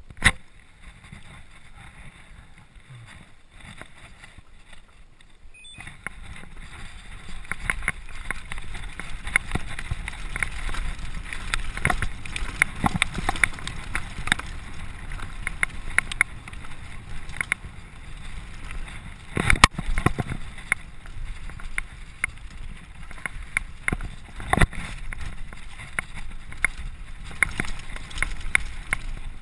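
Mountain bike ridden fast down a rough dirt trail: tyres rumbling and the bike rattling and clattering over bumps and roots, with a few harder knocks. The first few seconds are quieter before the riding starts.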